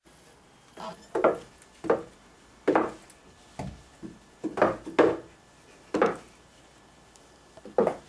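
Footsteps going down wooden stairs in shoes: about a dozen separate knocks on the treads at an uneven pace, some close together.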